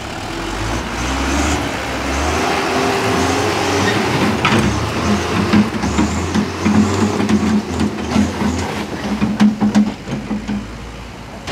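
Diesel engine of a dump truck revving hard under load, its pitch rising and falling, as the truck drives free of the rut it was stuck in with an excavator pushing behind it.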